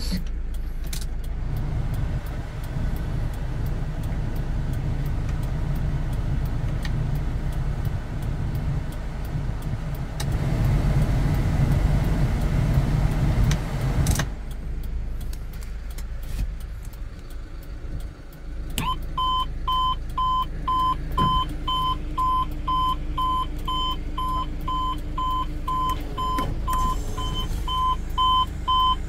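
Steady low rumble of the KIA Bongo3 truck idling, heard from inside the cab and swelling for a few seconds around ten seconds in. About two-thirds of the way through, an electronic warning beeper starts, beeping about twice a second in an even rhythm.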